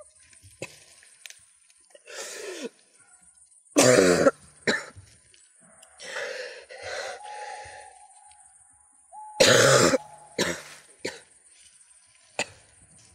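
A man coughing and clearing his throat in separate fits, the hardest coughs about four seconds in and again near ten seconds, over a faint high-pitched whine.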